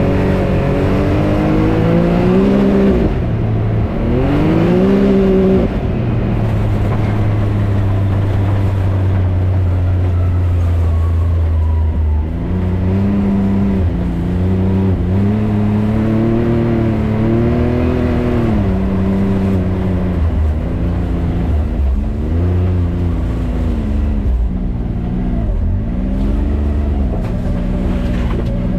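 2024 Can-Am Maverick X3 Turbo RR's turbocharged three-cylinder engine running under way, its pitch rising and falling with throttle. It holds a steady low drone for several seconds in the first half, then speeds up and slows repeatedly.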